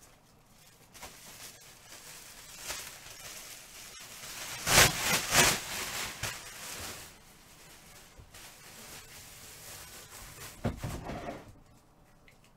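Trading-card packaging being handled and opened: rustling, tearing and scraping noises that come and go, with a loud pair of rips about five seconds in and another cluster near the end.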